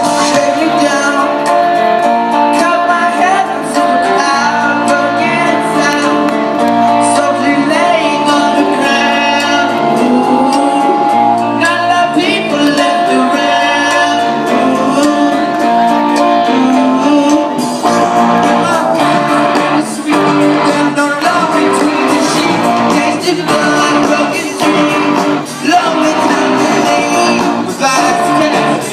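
Rock band playing live, with guitars, a steady drum beat and a lead vocalist singing, recorded on a phone in the audience.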